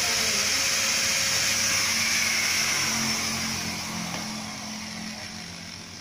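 Electric angle grinder running steadily with a high whine, then winding down after being switched off, fading gradually over the last three seconds.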